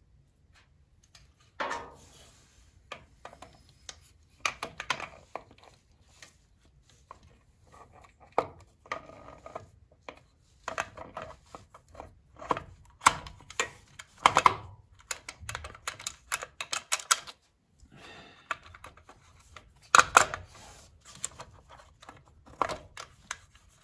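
Screwdriver clicking, tapping and scraping against metal down in a small-block Chevy's distributor bore, in irregular clusters of sharp clinks with pauses between, as the oil pump drive is turned to line up with the new HEI distributor's shaft. The distributor is not yet seated.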